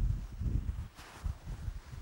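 Wind buffeting the microphone outdoors: irregular low rumbling gusts, strongest at the start and easing after about a second, with a brief higher hiss around a second in.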